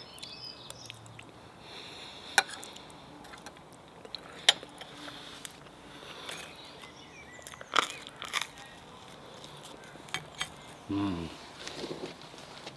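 A man eating: chewing and mouth sounds, with a few sharp clicks of a spoon against a plate. He gives a short hum about eleven seconds in, and faint birdsong sounds behind.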